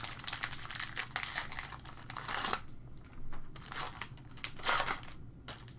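A trading card pack wrapper being torn open and crinkled: a dense rustle for the first couple of seconds, then a few shorter crinkles.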